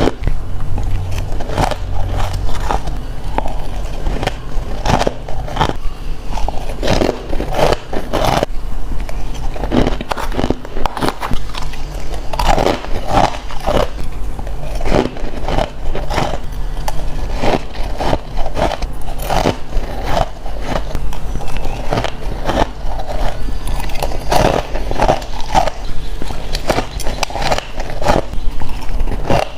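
Ice being bitten and crunched close to the microphone: a continual run of sharp, crackling crunches, several a second, over a steady low hum.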